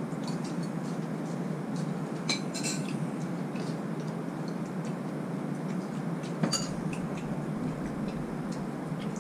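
Metal spoons clinking and scraping against ceramic bowls and plates during a meal, scattered light clinks with a sharper one about two seconds in and the loudest near six and a half seconds, over a steady low hum.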